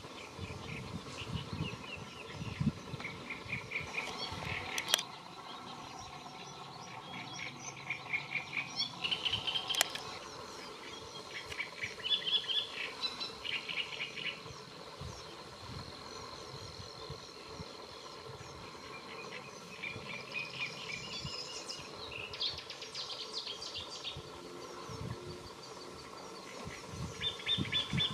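Small birds calling around a lagoon: repeated bursts of rapid, high chattering notes, with a thin steady high tone held for about twelve seconds in the middle and two sharp clicks around five and ten seconds in.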